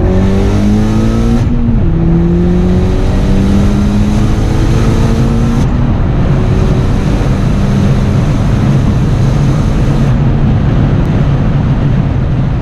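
Turbocharged VW Jetta 1.8T four-cylinder engine under hard acceleration, rising in pitch through the gears with an upshift about a second and a half in and another at around six seconds.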